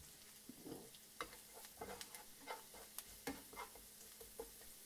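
Slotted spatula stirring garlic, ginger, parsley and chili flakes around a frying pan: a run of faint, irregular taps and scrapes over a quiet sizzle of butter and oil on low heat.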